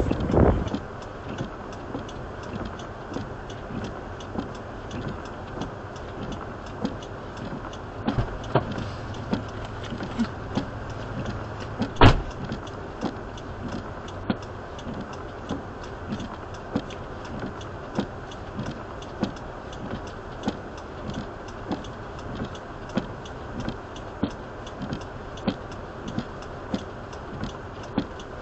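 Steady hum of a parked car idling, heard from inside the cabin, with a regular tick a little faster than once a second. One sharp, louder click comes about twelve seconds in.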